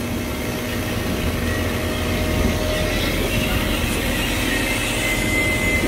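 Refrigerant recovery machine running steadily, a low hum with a hiss over it. It is pumping liquid refrigerant from a recovery cylinder into a chiller's liquid line to charge the system.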